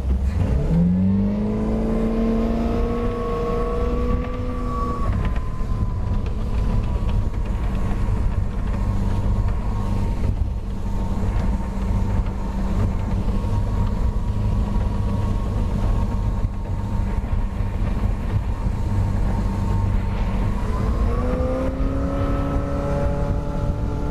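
MerCruiser 5.7 V8 sterndrive revving up hard from low speed as the boat jumps onto plane, its pitch climbing over the first two seconds. It then runs steadily at speed, settling slightly lower about five seconds in, and revs up again near the end.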